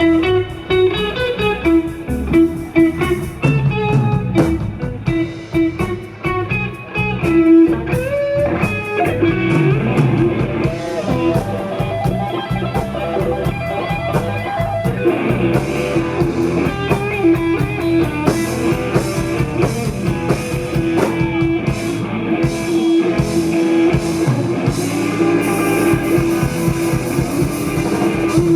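Live electric blues band playing an instrumental stretch with no singing: electric guitar lead lines over a drum kit, the guitar running quick notes in the first several seconds.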